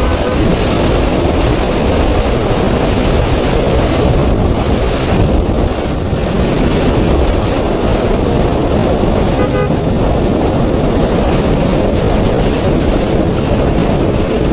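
Steady wind rush on the camera microphone mixed with engine and road noise from a Yamaha R15 V3 motorcycle riding at speed, with no change in pace.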